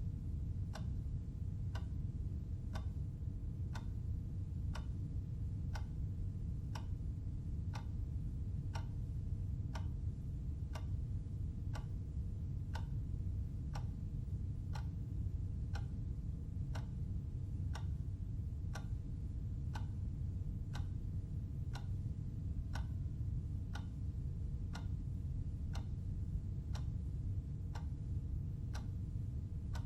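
Clock ticking steadily, even sharp ticks at a regular pace, over a steady low hum.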